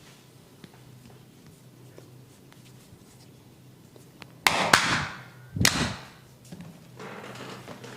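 Hands working the hair and scalp in a head massage make two loud, sudden crunchy bursts, about four and a half and five and a half seconds in, followed by softer rubbing.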